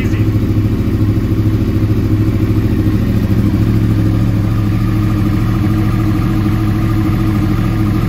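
A 2012 Yamaha R1's crossplane inline-four idling steadily through an Akrapovic exhaust, just after starting from cold.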